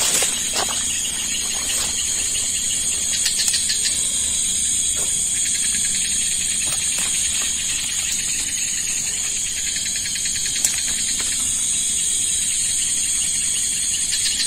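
Night insects in a swamp, crickets and similar, keeping up a continuous high-pitched chorus that holds steady throughout, with a few faint clicks.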